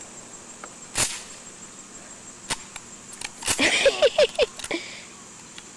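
Sharp clicks and clacks of a shotgun being handled: single ones about one and two and a half seconds in, then a quick cluster about three and a half seconds in.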